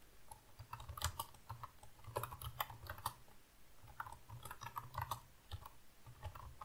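Typing on a computer keyboard: irregular key clicks, several a second, with short pauses between runs.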